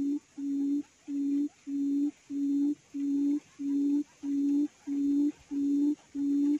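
Quail call played through a loudspeaker as a trap lure: one low, steady hooting note repeated evenly, about three notes every two seconds.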